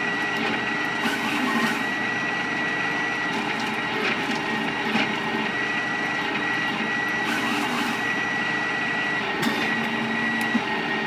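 Nokka 400 RS wood chipper running steadily as its spiked power feed rollers pull in conifer branches, with a steady high whine and several sharp snaps of wood being chipped.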